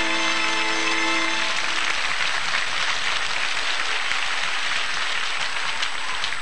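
The last held chord of a song dies away about a second and a half in, followed by steady audience applause.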